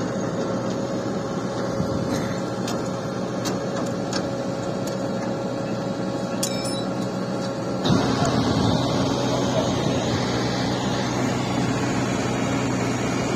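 Vehicle engines running steadily, a constant hum with a few faint clicks and knocks. About eight seconds in the sound steps up louder.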